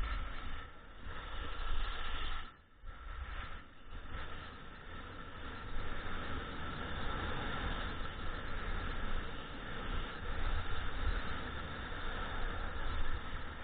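Wind rushing over the microphone of a camera carried by a skier on the way downhill, over the hiss of skis sliding on packed snow. It dips briefly about two and a half seconds in, then runs steadier and a little louder.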